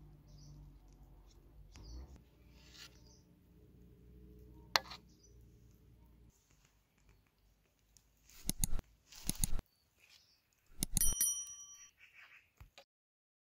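Faint outdoor background with a single sharp clink about five seconds in. After the background drops out, a subscribe-button sound effect plays: a few loud clicks, then a short ringing bell ding, and the sound cuts off abruptly near the end.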